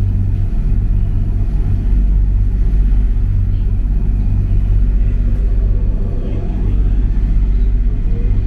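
A Mitsubishi Crystal Mover C810A rubber-tyred light-rail car running, heard from inside the car: a steady low rumble of tyres and running gear. A faint rising whine from the traction drive starts in the last couple of seconds as the car gathers speed.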